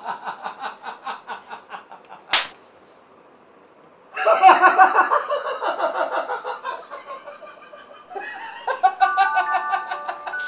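Two men laughing heartily in rhythmic bursts, with one sharp smack about two and a half seconds in and a short pause before the laughter comes back louder. Near the end a chiming, glockenspiel-like tune starts under the laughter.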